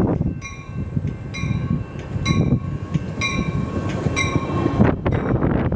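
Metra commuter train arriving and passing close by, a steady rumble of wheels and cars with a bell ringing about once a second over it. The ringing cuts off abruptly near the end.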